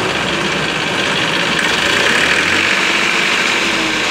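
Massey Ferguson tractor's three-cylinder diesel engine running steadily at idle.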